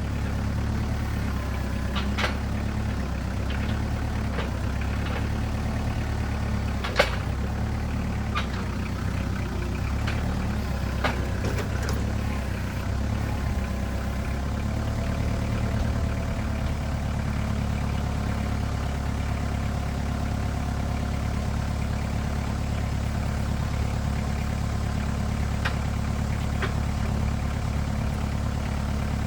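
Tractor engine running steadily at idle, with a few sharp clicks or knocks over it.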